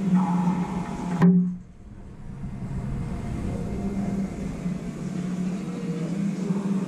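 A single sharp racquetball smack about a second in, over a steady low hum.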